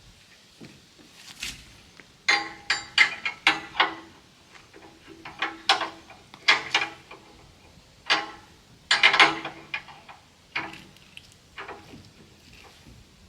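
Metal clanking: irregular clusters of hard knocks that ring briefly, in three main bursts with a few lighter knocks between.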